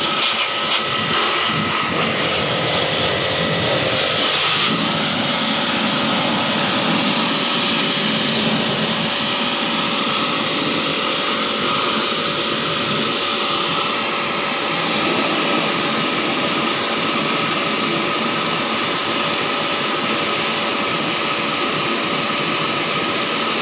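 Pressure washer running steadily, its lance spraying a fine jet of water onto the condenser coil of an air conditioner's outdoor unit: an even hiss of spray over a constant motor hum.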